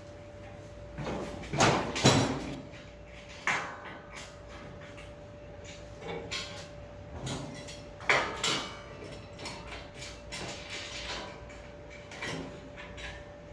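A series of irregular knocks and scraping, sliding sounds, loudest about two seconds in and again about eight seconds in, over a steady faint hum.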